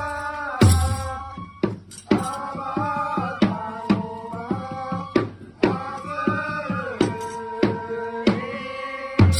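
Japanese festival music for a shishimai lion dance: a held, bending melody over frequent drum strikes, with a heavy low drum beat about half a second in and again near the end.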